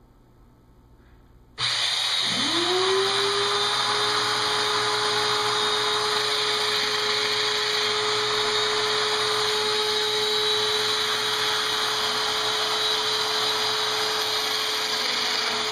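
Festool Domino DF 500 joiner switched on about a second and a half in. Its motor spins up over about a second and then runs steadily at full speed while mortises for 5x30 dominoes are cut along the rail. It is switched off just before the end.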